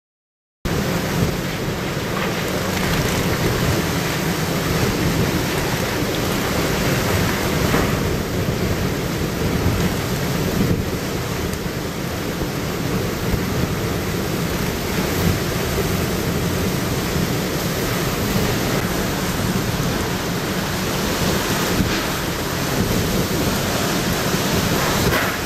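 Typhoon wind and torrential rain: a dense, steady rush that cuts in abruptly about half a second in.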